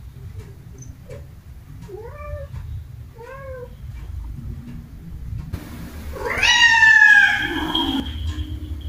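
Domestic cat meowing: two short meows about a second apart, then a long, loud meow about six seconds in that rises and then falls in pitch.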